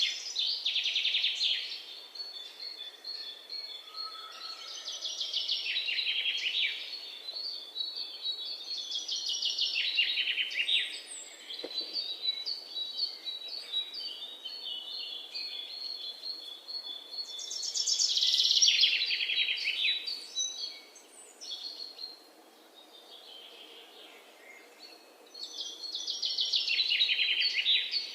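Budgerigars chirping and chattering, with several bursts of rapid, high chatter that sweep downward, over a thin repeated high chirp.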